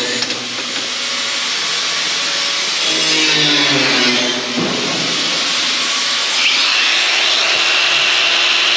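Angle grinders with cutting discs slicing through aluminium boat plate: a loud, continuous grinding hiss, the motor's whine sagging in pitch now and then as the disc bites into the metal.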